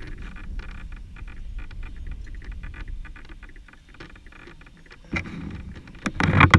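Footsteps in grass coming up close to the microphone, with the rustle of grass and clothing as the person stops and kneels. Near the end comes a loud bump and rustle as a hand handles the camera's mount.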